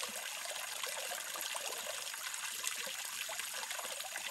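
Thin streams of water falling and splashing into a pond, a steady trickling splash.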